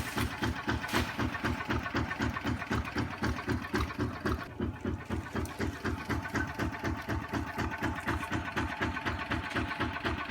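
Kubota RT155 single-cylinder diesel engine idling with a rapid, even chugging beat.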